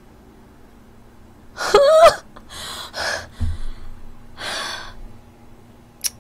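A woman's short, rising voiced gasp about two seconds in, followed by a few breathy laughing exhales, and a brief click near the end.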